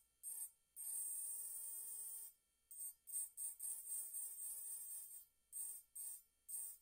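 Electric engraving pen's bit grinding into a wine glass in short strokes. A thin, high buzzing whine comes and goes with each touch of the bit: one longer stroke about a second in, then a quick run of brief ones.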